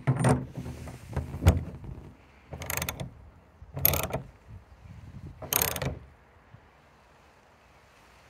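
Socket ratchet clicking in three short runs as it is swung back and forth to tighten the brass backnut of a tank connector through a plastic bin wall. A few knocks and clatter in the first two seconds as the socket is set on the nut.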